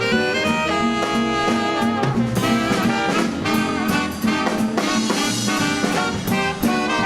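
Live swing dance band playing: trumpets, trombone and saxophones over a drum kit keeping a steady beat.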